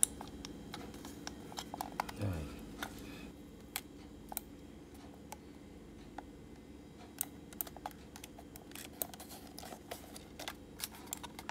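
Scattered small clicks and taps of hard plastic being handled: fingers working a computer mouse's plastic shell and pressing a strip of adhesive tape onto it.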